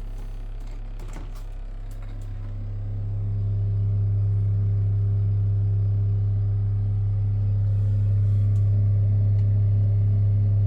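A 173MRB refrigerator humming steadily at a low pitch. The hum swells about three seconds in and then holds, with a few faint clicks in the first couple of seconds.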